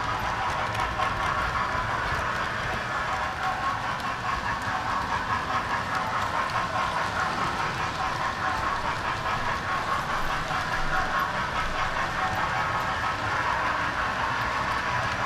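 Model railway train running steadily round the layout's track, heard close up from one of its own wagons: a continuous whir and rattle of small wheels on the rails and the locomotive's motor.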